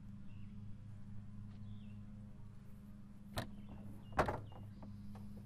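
Two sharp clunks, about three and a half and four seconds in, the second louder, as a rotary hammer is set down on a utility vehicle's tailgate. Under them is a steady low hum, with a few bird chirps.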